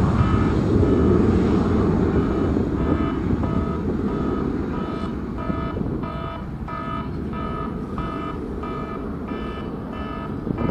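Airbus A320 jet engines at takeoff power, a low rumble that slowly fades as the airliner rolls away down the runway. From about three seconds in, a steady electronic beeping, about two beeps a second, sounds over the rumble.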